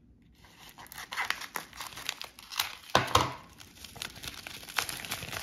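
Plastic packaging crinkling and crackling as a small plastic bag is handled and opened by hand. It starts about half a second in, with a louder burst of crackling around the middle.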